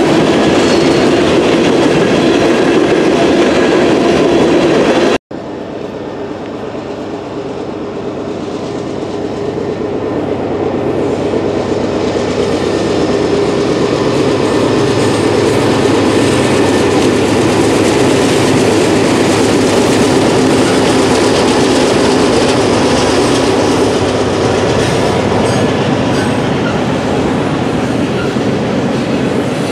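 Freight train wheel noise: empty open hopper cars rolling by with steady clatter. About five seconds in this cuts off abruptly. It is followed by a Norfolk Southern double-stack container train crossing a steel girder bridge overhead, its rolling wheel noise growing louder over several seconds and then holding steady.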